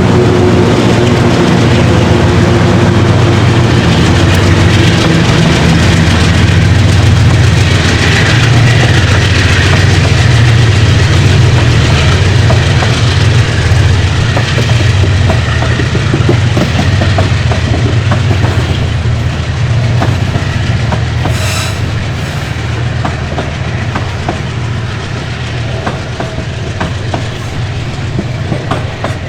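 Loaded freight train climbing a grade under power: the diesel locomotives' engines drone low and steady while the wagons clatter over the rail joints. The sound eases off over the last several seconds as the train draws away.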